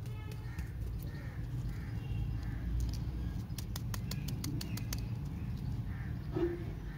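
Close rustling, crinkling and small clicks of wrapped stick lollipops being picked up and handled in the fingers, over a steady low background rumble.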